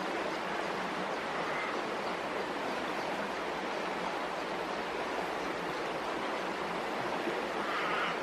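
Steady rush and trickle of shallow river water flowing past, heard close to the water surface.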